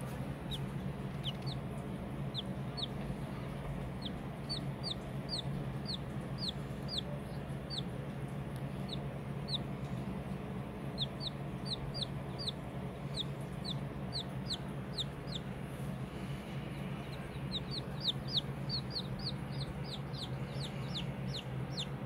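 Japanese Bantam chick peeping: a run of short, high, falling peeps, two or three a second, coming faster near the end.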